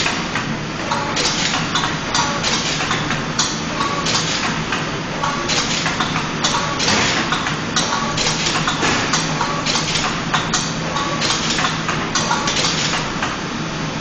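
Automatic labelling machine running, feeding flat-pack cards along its conveyor past the top and bottom label applicators. It makes a steady hum under a fast, uneven clatter of clicks and clacks.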